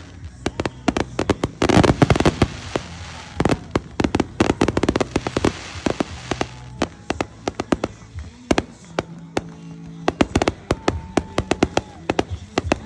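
Fireworks crackling and popping in rapid volleys, densest about two seconds in and again from about four to six seconds, then thinning to scattered sharp pops.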